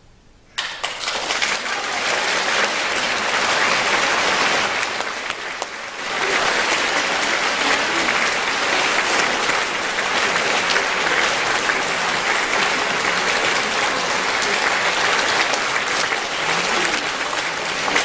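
Audience applauding: the clapping breaks out suddenly about half a second in, eases a little around five seconds and swells again, carrying on steadily.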